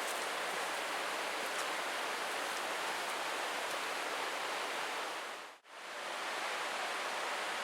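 Steady rushing of a stream's flowing water in a rocky gorge. The sound drops out for a moment a little past halfway, then resumes unchanged.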